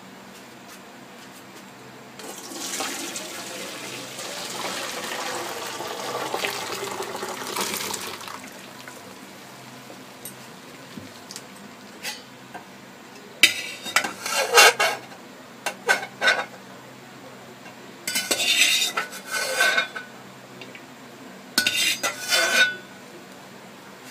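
Potato sticks and their starchy water poured into a stainless-steel colander, the water rushing and splashing through for about six seconds. Later, three short bursts of steel clattering and clinking.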